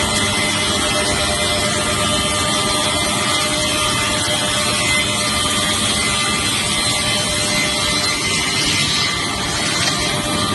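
Multi-blade rip saw running steadily while ripping wooden planks into strips: a continuous loud machine noise with a steady high whine through it.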